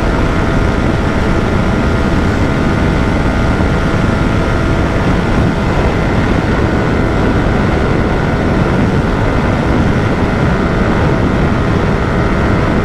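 Yamaha R15 motorcycle held flat out in sixth gear near its top speed of about 140 km/h. The engine drones at a steady high pitch under heavy wind rush on the microphone, and the bike is struggling to gain speed against wind drag.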